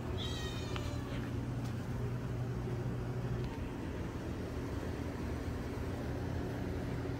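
A brief high-pitched squeal lasting under a second near the start, over a steady low hum.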